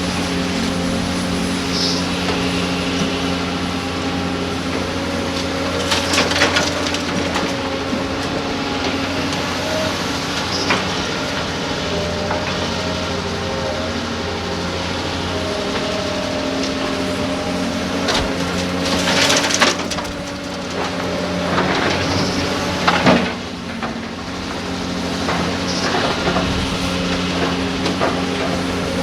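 Diesel engines of hydraulic excavators running steadily, with several bursts of scraping and clattering as sand and rock are scooped and dumped into a dump truck's bed.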